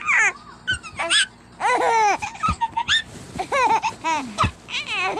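Baby laughing in repeated high-pitched bursts, with a couple of sharp taps in between.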